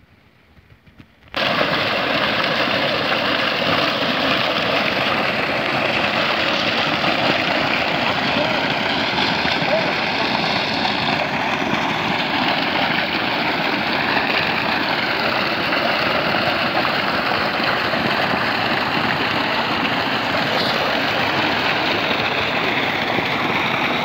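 Water gushing from the solar pump's 4-inch delivery pipe and splashing into a channel: a loud, steady rush that starts abruptly about a second in.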